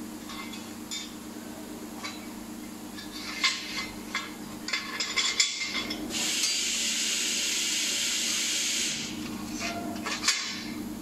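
Laser-cut steel sheet being bent by hand along its perforated fold lines with a hand tool: a run of sharp metallic clicks and knocks, then a steady hiss for about three seconds, over a low steady machine hum.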